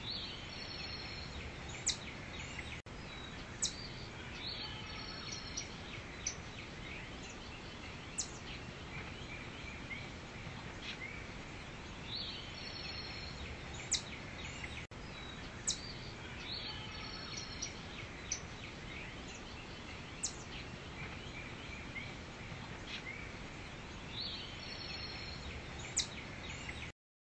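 Forest ambience: a steady background hiss with scattered short, sharp bird chirps, repeating as a loop about every 12 seconds, then cutting off just before the end.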